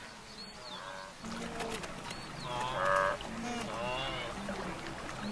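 A wildebeest herd calling: short nasal grunting honks, repeated and overlapping about once a second, the loudest near the middle and at the very end.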